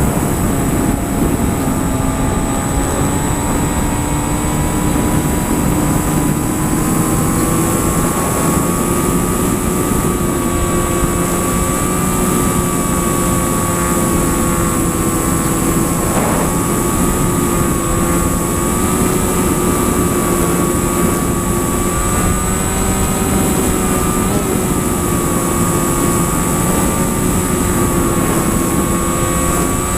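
Aircraft engine and propeller droning steadily in flight, its pitch wavering slightly.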